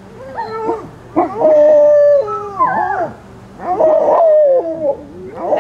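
Young Alaskan Malamute puppies howling and whining, in three runs of wavering, pitch-bending calls with short breaks between; the middle run holds one note for about a second.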